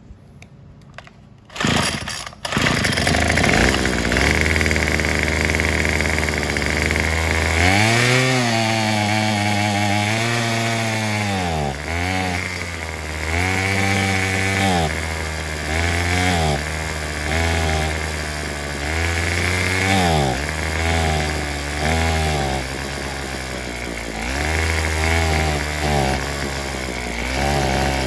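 Craftsman WS210 string trimmer's small two-stroke engine catching on a pull about two seconds in, then running and being revved up and down over and over, its speed climbing and sagging back. It runs on a replacement carburetor but still won't idle properly or go to full throttle.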